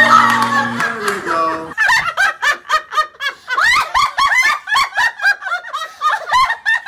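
Two women cackling with laughter in a rapid, rhythmic villain-style cackle, starting about two seconds in. It opens with a short steady pitched sound lasting about a second and a half.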